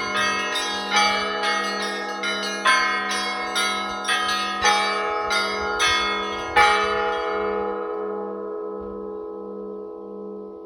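Church bells ringing: several bells struck one after another in quick succession, the last and loudest strike about six and a half seconds in, after which the bells ring on and die away. Under it a low hum pulses evenly throughout.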